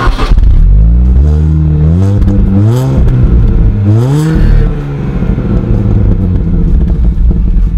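Exhaust of a 2008 MINI Cooper S Convertible's supercharged four-cylinder engine, heard at the twin tailpipes, blipped several times with the revs rising and falling back. After about five seconds it settles to a steady idle.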